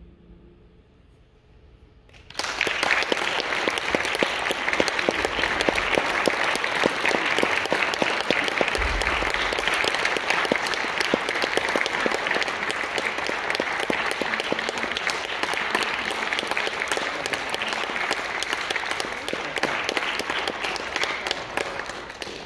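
The last notes of a pedal harp dying away, then, about two seconds in, an audience suddenly breaks into steady applause that eases off slightly near the end.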